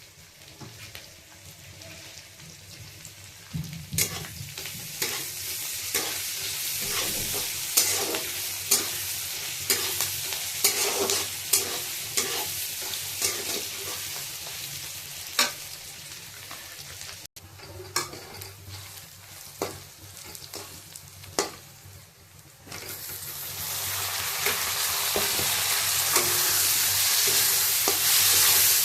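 Food frying in a hot pan while being stirred, the spatula scraping and clicking against the pan many times. About two-thirds of the way through, the sizzling jumps suddenly louder and stays loud and steady.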